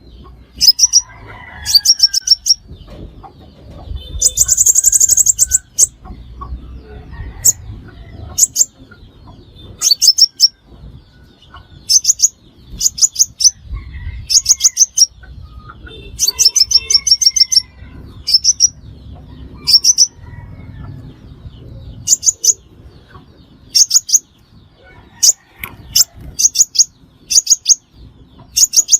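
A sunbird calling in short bursts of rapid, thin, high chirps, repeated every second or two, with a longer, denser trill about four seconds in. A faint low rumble lies underneath.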